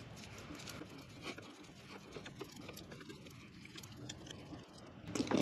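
Faint scattered clicks and light scraping of a screwdriver turning a small screw back into the drain plug housing, with one slightly louder click a little over a second in.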